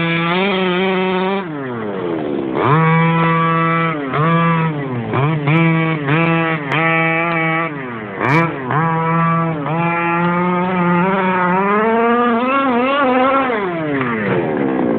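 Petrol two-stroke engine of an HPI Baja 5SC SS 1/5-scale RC short-course truck driven hard on dirt: the engine note repeatedly climbs to a high, steady howl at full throttle, holds for a second or two, then drops as the throttle is released, about six times.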